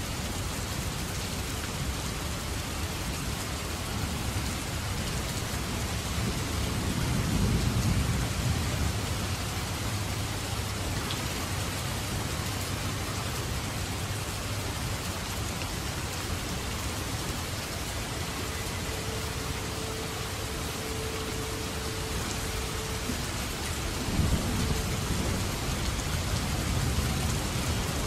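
Heavy downpour of rain falling steadily, with two long low rolls of thunder, one about a quarter of the way in and one near the end.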